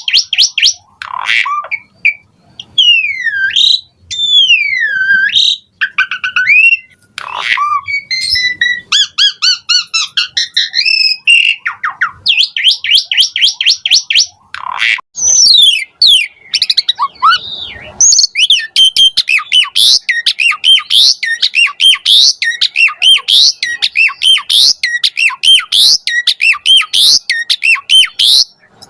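Asian pied starling (jalak suren) singing a long, varied song loaded with mimicked notes. Fast runs of short chirps alternate with sliding whistles and harsh squawks, ending in a long, dense stretch of rapid notes.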